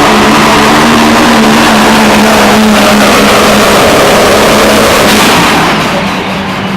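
Competition pulling tractor's engine running loud and steady in pitch, its sound falling away near the end.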